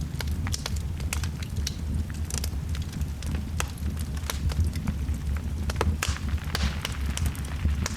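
Wood fire burning in a fireplace: a steady low rumble of flames with frequent irregular crackles and pops.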